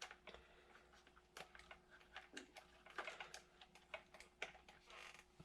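Faint, irregular small clicks and taps of a plastic RC-truck drive shaft and yoke being handled and pushed back into place.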